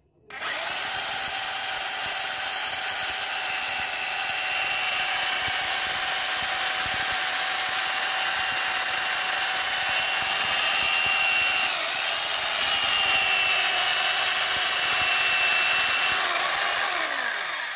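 Electric drill in plain rotary mode, without hammer action, running steadily with an 8 mm masonry bit grinding into a brick: a steady whine that starts just after the beginning and stops near the end. The bit makes little headway into the brick without the hammer action.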